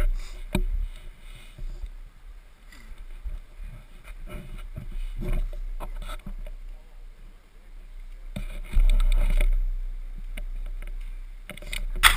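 Low wind rumble on an action camera's microphone with scattered knocks and scuffs. A stronger gust of rumble comes a little before the end, and near the end come loud rubbing and knocks as the camera is picked up and handled.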